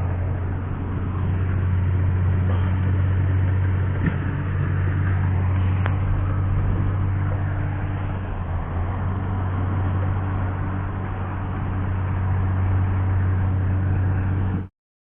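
Caterpillar bulldozer's diesel engine running with a steady, deep drone. The sound cuts out abruptly for a moment near the end.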